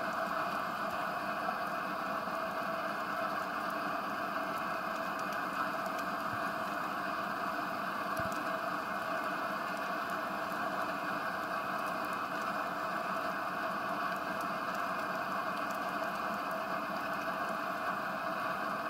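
Steady underwater ambience: an even hiss with faint scattered clicks.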